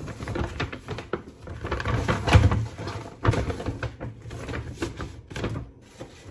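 Brown kraft-paper shopping bag rustling and crinkling in a series of irregular rustles as a hand reaches in and lifts out a glass syrup bottle, loudest around the middle.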